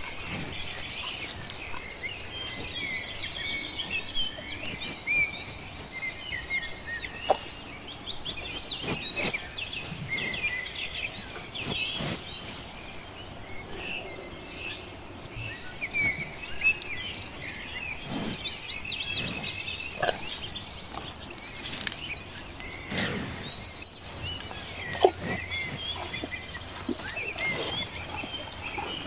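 A chorus of many small birds chirping and twittering continuously, with a few short sharp clicks scattered through it.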